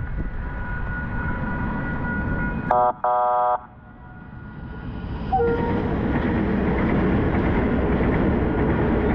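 KiwiRail diesel locomotives' horn sounds a short toot and then a longer blast about three seconds in. From about five seconds the lead locomotives pass close by, their diesel engines and wheels on the rails making a loud, steady rumble.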